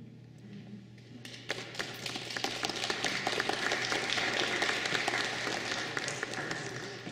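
Audience applauding, the clapping starting about a second in, swelling, then dying away near the end.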